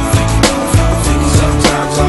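Instrumental stretch of a hip-hop/R&B song: a steady beat with guitar and bass, no vocals.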